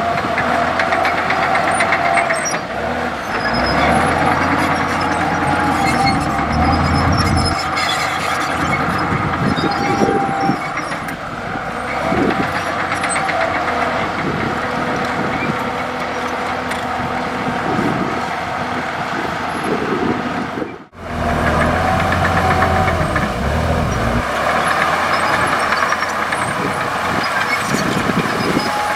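Komatsu D65E bulldozer working, its diesel engine running steadily with a whining tone and intermittent low knocks. The sound drops out sharply for a moment about two-thirds of the way through.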